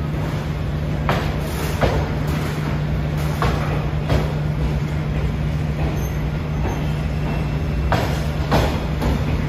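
SE9 passenger train running: a steady hum and rumble, with pairs of wheel knocks over rail joints three times.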